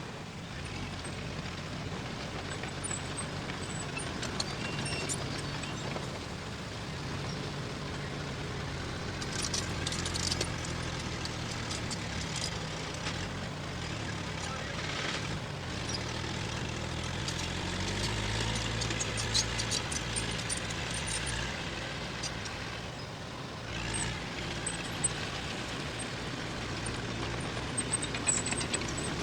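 Diesel engine of heavy earth-moving machinery running under varying load, its pitch rising about two-thirds of the way through. Clusters of sharp clicks and clanks come in over the engine twice in the middle and again near the end.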